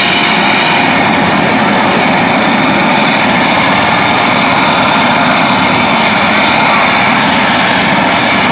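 Eurocopter EC130 helicopter running on the ground with its main rotor turning: a loud, steady turbine engine and rotor noise.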